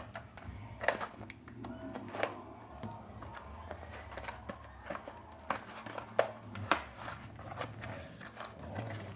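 A pistol grip tripod being unboxed by hand: scattered sharp clicks and taps of the packaging and parts, with light handling noise in between.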